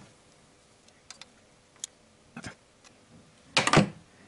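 A few light metallic clicks and a knock as tools and metal parts are handled, then a louder double clatter about three and a half seconds in.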